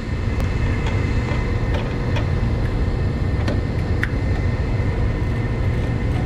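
Steady low hum of running equipment, with a few faint metallic clicks as an adjustable wrench works the flange bolts of a cartridge circulator pump.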